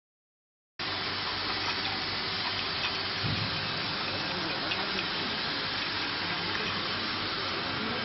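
Automatic rotary crimping and labeling machine running: a steady noise that starts just under a second in, with a few faint scattered clicks, as glass bottles ride the conveyor into it.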